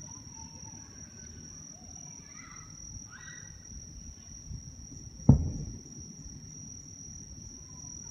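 One aerial firework shell bursts about five seconds in with a single sharp boom whose rumble dies away over half a second. Under it runs a steady high-pitched insect trill.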